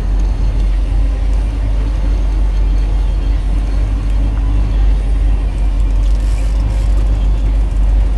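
Fishing boat's engine running steadily while trolling, a constant low drone with no change in pitch or level.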